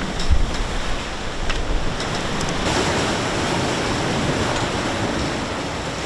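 Sea rushing and splashing along a sailing yacht's hull as it sails through chop, with wind buffeting the microphone. A few light knocks come in the first two seconds, and a louder rush of spray comes from about three seconds in.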